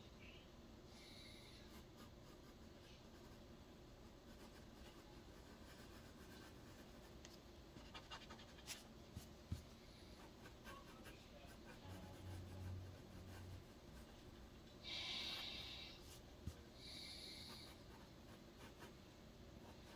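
Faint, intermittent scratching of a drawing or writing tool on paper: a handful of short strokes spread out with pauses, plus a few light taps.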